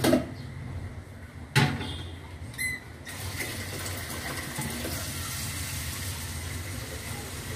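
A knock about one and a half seconds in and a short clink a second later, then water running steadily from about three seconds on.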